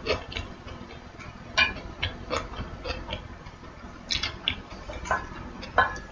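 Close-up eating sounds: a string of short, sharp clicks and smacks at irregular intervals, about one every half second to a second.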